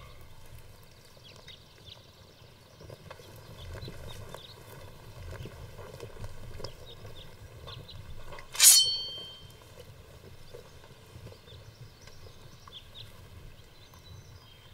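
Footsteps of a group of soldiers on grass with the knocking and rattling of their gear. About two-thirds of the way through comes one sharp clank with a brief ringing tone.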